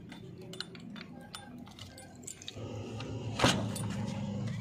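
Keys on a keyring clinking as a key is worked in the cab door lock of a JCB 3DX backhoe loader. There is a scatter of small metallic ticks, then one sharp click from the door lock about three and a half seconds in. A low hum sits underneath in the second half.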